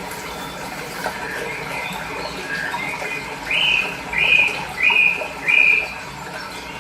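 A songbird calls four loud, evenly spaced notes in a row, each sliding up into a held whistle, while other birds chirp softly over a steady rush of flowing water.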